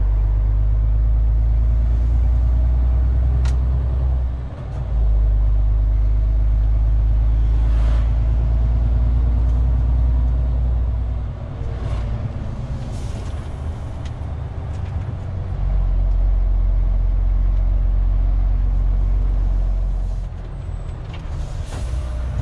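MAN TGX 470 truck's straight-six diesel engine heard from inside the cab, a deep steady drone that drops away briefly about four and a half seconds in, again from about eleven to fifteen seconds, and once more near the end.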